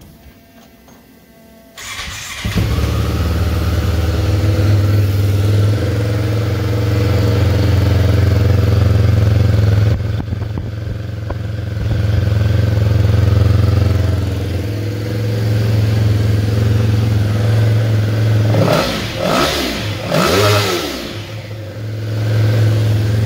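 Yamaha Phazer snowmobile engine, mounted on an ultralight airplane with no propeller fitted, starts about two seconds in and runs at a steady idle. Near the end it is revved up and back down twice, then settles back to idle.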